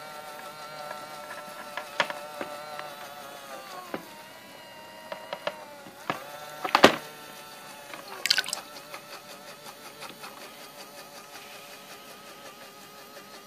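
Small electric bilge pump motor whining with a slightly wavering pitch that sags briefly around the middle, as water trickles and drips out of the boat. A few sharp clicks and knocks cut in, the loudest about seven seconds in.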